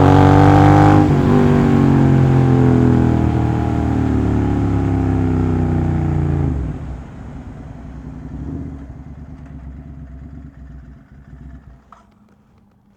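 Royal Enfield GT 650 parallel-twin engine through an aftermarket AEW full-system exhaust, revved and then running with a steadily falling note. About halfway through it drops away sharply, leaving a low rumble that fades to faint.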